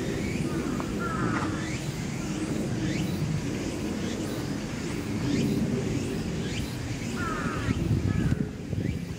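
Birds calling over a steady low rumble of city background noise, with short chirp clusters about a second in and again near the end.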